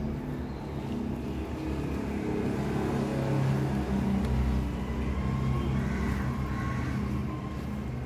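Low, steady motor-vehicle engine rumble that swells about halfway through and then eases back.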